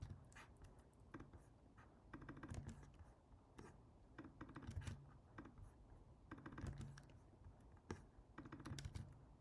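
Faint computer keyboard typing in short bursts of keystrokes, roughly every two seconds.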